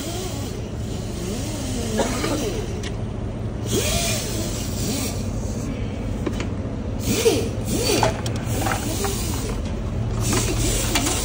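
Repair-shop background: a steady low machine hum with indistinct voices, broken three times by short hissing bursts.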